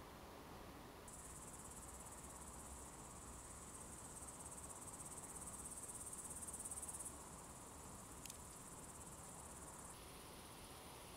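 Crickets chirring: a faint, continuous high-pitched trill that starts about a second in, grows a little louder, then drops back about seven seconds in and changes again near the end. One faint click a little past eight seconds.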